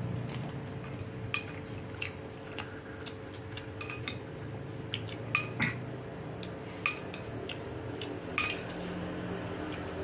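Metal spoon clinking against a ceramic bowl as food is scooped out: a dozen or so short, sharp ringing clinks at uneven intervals, the loudest between about five and eight and a half seconds in.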